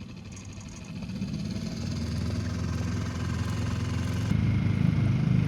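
Small boat's outboard motor running with a steady buzzing hum. It grows louder about a second in and steps up again about four seconds in, as the throttle is opened.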